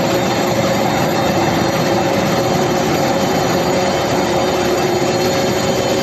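Steady machinery noise of an induction billet heating line, a constant rushing din with a steady hum running through it.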